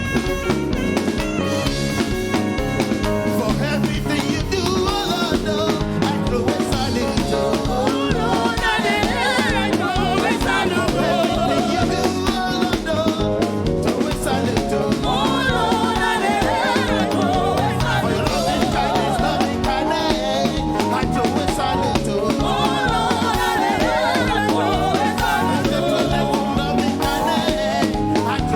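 Live praise and worship music: singing with a band of drum kit, bass and guitar keeping a steady beat.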